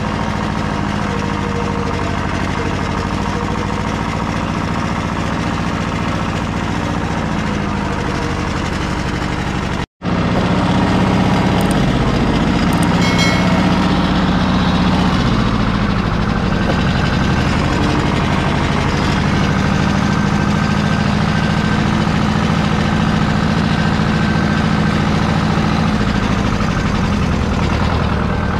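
Small tractor engine running steadily, its pitch dipping and recovering a few times. The sound breaks off for an instant about ten seconds in, then carries on slightly louder.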